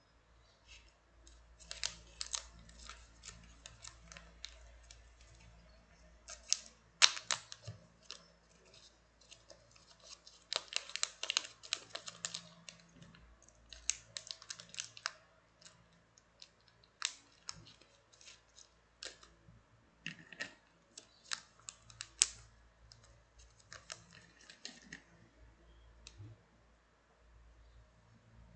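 Small clear plastic bag crinkling and crackling as it is handled and opened, in irregular bursts of sharp crackles and clicks.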